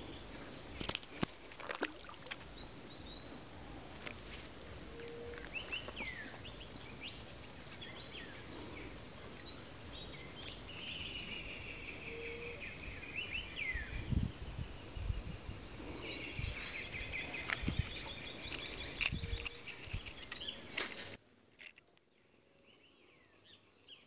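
Birds chirping and calling over a steady outdoor background hiss, with a few scattered clicks and low thumps. The sound cuts off abruptly near the end.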